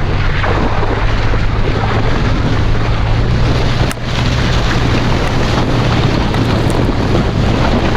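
A Toyota FJ Cruiser's 4.0-litre V6 running steadily while driving on tyre chains, heard from inside the cab, under a constant rushing noise of the chained tyres through water and slush. The noise dips briefly about four seconds in.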